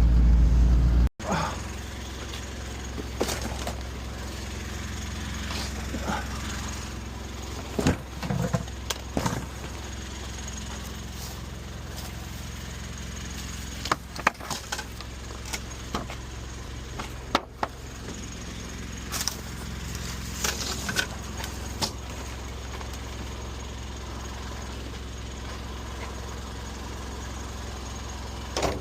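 A vehicle engine running with a steady low hum. Scattered short knocks and clatters sound over it, most clustered around a third and two-thirds of the way through. A louder low rumble in the first second stops abruptly at a cut.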